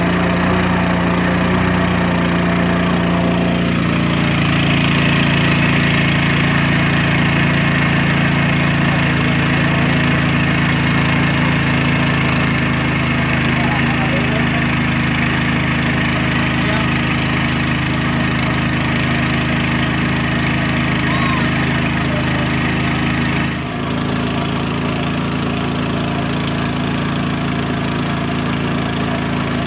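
A wooden boat's motor running steadily under way. About four seconds in its pitch shifts slightly, and about twenty-three seconds in it dips suddenly and settles to a slightly lower, steady note.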